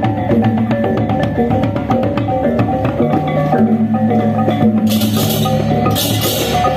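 Balinese gamelan music: tuned bronze metallophones struck in quick patterns over low sustained gong tones. From about five seconds in, clashing cymbals join roughly once a second.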